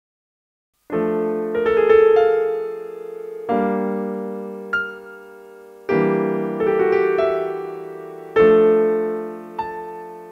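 Solo piano entering about a second in, playing slow chords that are struck every second or two and left to ring and fade, as the introduction to a romance.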